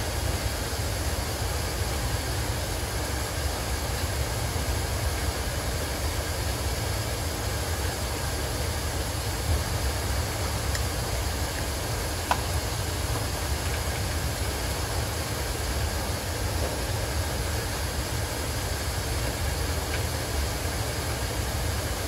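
Steady low rumble and constant hum of a running HVAC system, with air moving through the ductwork in the ceiling space. There is a single light click about twelve seconds in.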